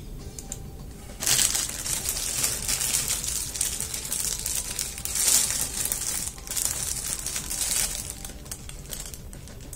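Clear plastic bread wrapper crinkling as it is handled and pulled back from the bread. It starts suddenly about a second in, comes in uneven surges, and dies down near the end.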